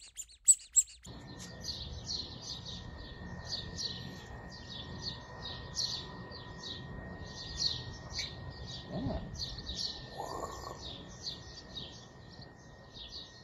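A couple of sharp clicks, then from about a second in many small birds chirping and twittering without pause over a low outdoor hiss, with a faint steady high tone underneath.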